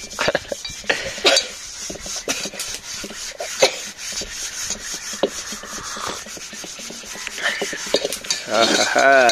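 Green scouring pad scrubbing the inside of a wet black iron karahi, in quick repeated rubbing strokes. Near the end a brief wavering pitched sound rises over the scrubbing.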